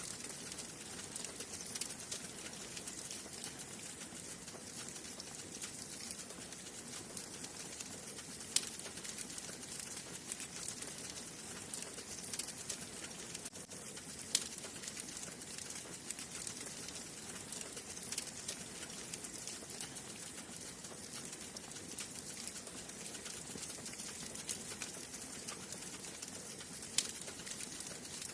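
Wood fire burning in a fireplace: steady crackling with many small snaps and a few sharper pops, one about eight seconds in, one about fourteen seconds in and one near the end.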